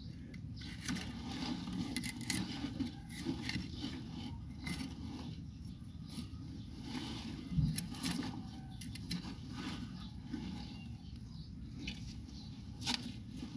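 Rustling and light scraping as an uprooted banana plant is shifted about, over a steady low rumble, with a dull thump about seven and a half seconds in.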